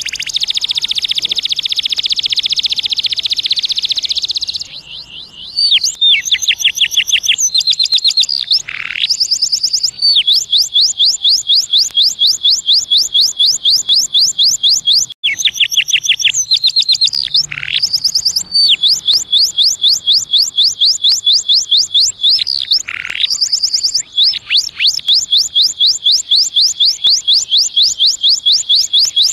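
Male domestic canary singing: a fast, dense rolling phrase, then long runs of rapid, evenly repeated high notes, about six a second. The runs are broken by brief pauses and a few falling notes.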